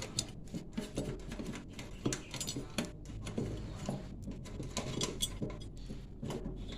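Irregular light clicks, taps and clinks, like metal tools and parts being handled, with a low steady hum underneath.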